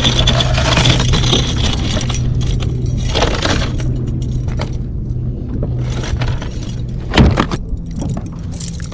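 Metal clinking and rattling of a fish stringer and gear being handled on a kayak while a striped bass is clipped on. A sharper, louder knock comes about seven seconds in.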